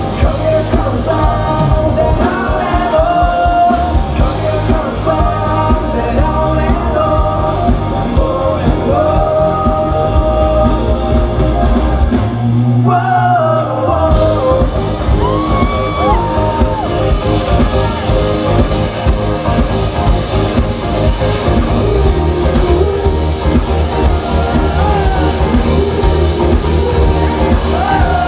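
Live rock band playing with a lead vocal sung over bass, drums and guitar. About 12 seconds in, the bass and drums drop out for a moment, then the full band comes back in.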